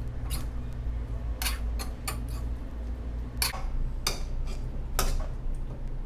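A metal cooking utensil clinking against a wok in about six separate knocks as the food is tossed, over a steady low hum.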